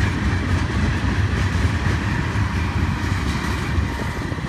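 Open-top freight cars of a Norfolk Southern ballast train rolling past: a steady low rumble of steel wheels on rail with faint clicks, easing slightly near the end as the last cars go by.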